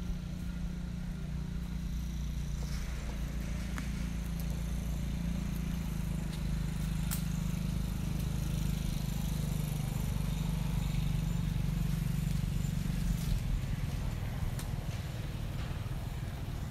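A motor running steadily off-screen, a low even hum that weakens near the end, with a few faint light clicks.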